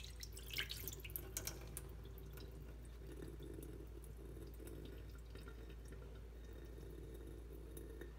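Water draining off soaked bread from a tilted plastic tub and dripping into a stainless steel sink: a few sharp drips in the first couple of seconds, then only a faint trickle.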